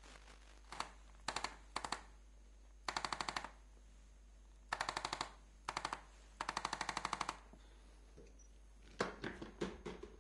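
Handheld electric chiropractic adjusting instrument firing short trains of rapid, even clicks against the patient's foot and leg, about seven bursts of a fraction of a second each. A few separate knocks follow near the end.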